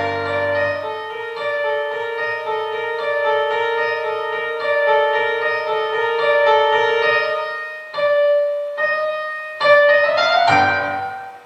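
Instrumental music on a keyboard instrument: a slow melody over held chords, with brief pauses, a quick upward run near the end, then fading out. It is the wordless close of the song.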